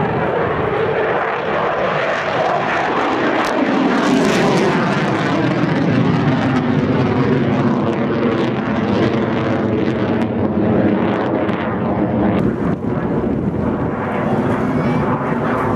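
Eurofighter Typhoon's twin EJ200 jet engines, loud throughout as the fighter flies its display. The pitch falls over the first few seconds, then a steady rough, buzzing tone holds.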